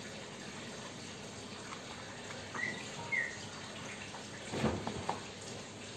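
A steady hiss like running water, with two short chirps about midway and a few light knocks near the end.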